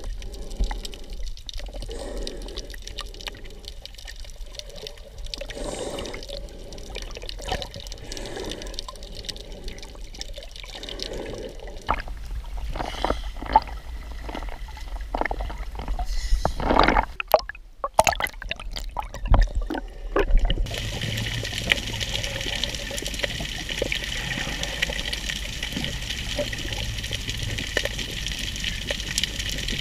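Water heard through a snorkeler's camera held underwater: muffled water noise with small clicks and bubbling. About halfway through there is a stretch of splashing as the camera comes up to the surface, then a steady underwater hiss.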